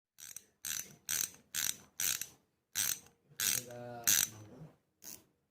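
Spinning reel's drag clicker ratcheting in about nine short bursts, roughly two a second, with a brief pause near the middle and a short low hum partway through.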